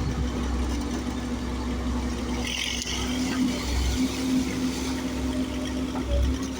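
Komatsu PC130 excavator's diesel engine running steadily, with a brief hiss about two and a half seconds in.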